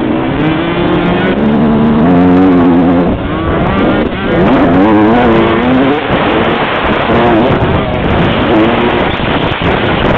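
125cc two-stroke motocross engines, the rider's own Suzuki RM125 heard from the helmet with a Honda CR125 just ahead, revving up and dropping back again and again as they ride the track.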